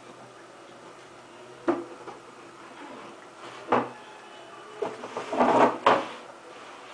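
A few sharp knocks about two seconds apart, then a short run of louder clattering knocks near the end.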